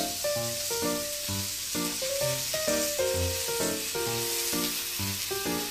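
Background music with a steady beat over the steady hiss of a thin okonomiyaki batter crepe sizzling on a hot iron teppan griddle.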